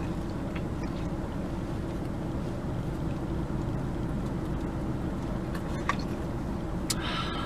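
Steady low rumble of a car engine idling, heard from inside the cabin, with a few faint clicks near the end.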